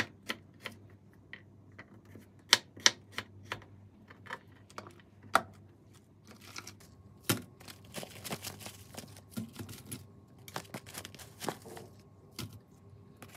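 Kitchen food prep: a knife cutting on a plastic cutting board in sharp, irregular clicks, then a quicker run of small clicks and taps as chopped vegetables and plastic food packaging are handled.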